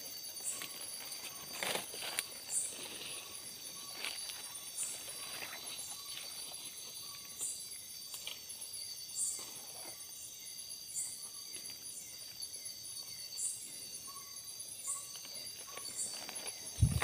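Night-time tropical forest insect chorus: a steady high drone with short high chirps repeating about once a second. Over it are scattered footsteps and rustling through undergrowth, and a loud thump just before the end.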